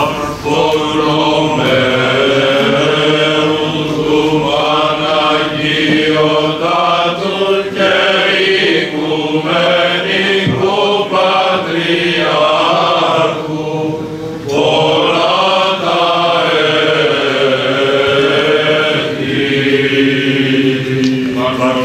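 Orthodox church choir chanting a hymn a cappella in slow, sustained phrases.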